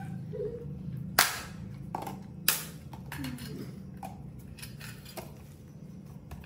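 Sharp plastic clicks and knocks as yogurt pots are snapped apart from their multipack and set down on a plate, the loudest about a second in and again about two and a half seconds in.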